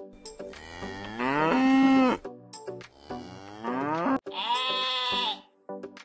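Cattle mooing: two long calls, each rising in pitch and then held, over light background music.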